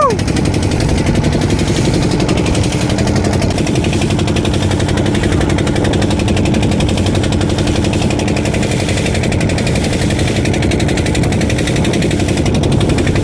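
Fishing boat's engine running steadily with a fast, even chugging.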